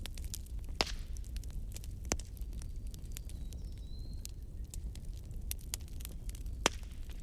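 Wood fire burning in a fireplace: a steady low rumble under constant small crackles, with three sharper pops of the burning logs. A faint brief high whistle comes a little past halfway.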